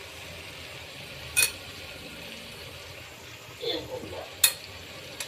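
A metal utensil clinks sharply against a metal cooking pot twice, about a second and a half in and again, louder, near the end, over a faint steady hiss from the pot of fenugreek leaves cooking on the gas stove.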